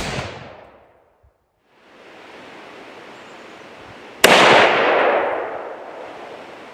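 Hunting rifle being fired while it is sighted in. The echo of one shot dies away in the first second, and a second, louder shot comes about four seconds in, its echo rolling off over about two seconds.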